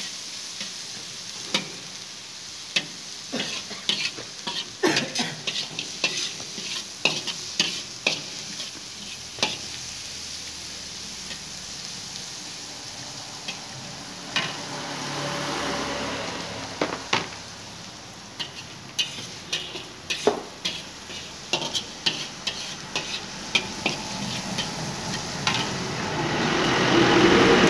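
Flat metal spatula scraping and clanking against an iron kadhai while chicken, onion and garlic sizzle in hot oil; the strikes come irregularly, sometimes several a second. A louder rushing sound swells near the end.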